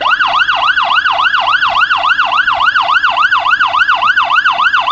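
Police vehicle siren in yelp mode: a loud, rapid up-and-down sweep of about four cycles a second, breaking off at the very end.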